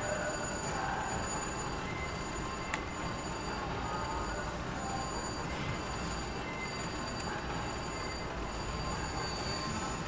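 Slot machine ringing and chiming over the steady din of a casino floor, with several high tones held throughout. A single sharp click comes a little under three seconds in.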